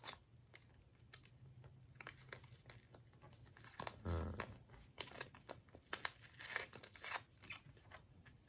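Faint tearing and crinkling of a small plastic coffee sachet being picked and torn open by hand, in short scattered bursts with a louder rustle about four seconds in.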